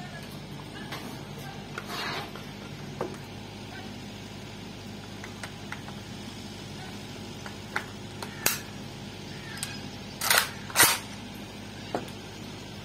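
Metallic clicks and clacks from a Saiga-M3 EXP-01 .223 AK-pattern rifle being handled and loaded: a few sharp clicks, then two louder clacks about half a second apart about ten seconds in, and a last click near the end.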